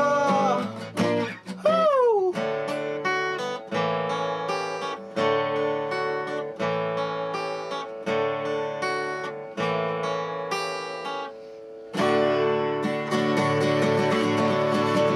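Acoustic guitar playing a ballad's instrumental ending: a voice slides down on a last note in the first couple of seconds, then picked chords ring out about every second and a half. After a short drop in level about eleven seconds in, steady strumming takes over.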